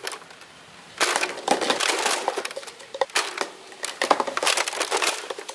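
Nerf Longshot dart blaster shooting at a stacked pyramid of small cans, with clattering knocks as cans are hit and tumble off the table. The clatter comes in three bunches: about a second in, around three seconds in, and from about four seconds to near the end.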